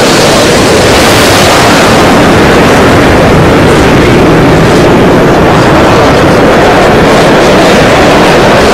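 Many Space Shuttle launch soundtracks layered at once: the noise of the rocket engines and solid rocket boosters at ignition and liftoff merges into one steady, loud wall of rocket noise.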